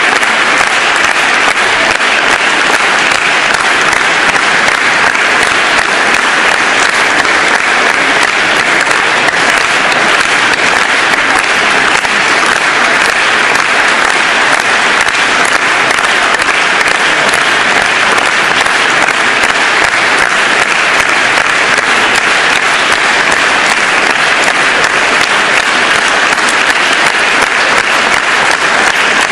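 Audience applauding: dense, steady clapping that goes on without a break.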